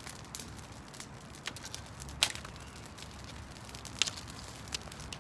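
Footsteps through dry brush and leaf litter, with scattered sharp crackles of snapping twigs; the loudest crackles come about two seconds in and about four seconds in.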